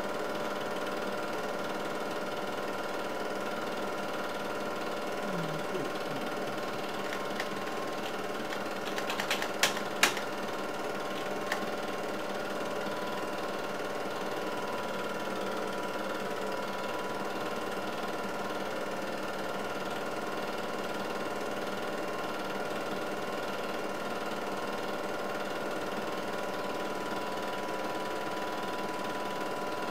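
8mm film projector running steadily: a continuous mechanical whirr with a steady hum. A few sharp clicks come about nine to ten seconds in.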